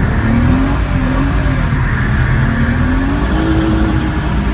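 BMW E36 325's M50B25 straight-six revving hard in the cabin during a drift. Its pitch dips and rises, then climbs and holds high about three seconds in, with music playing over it.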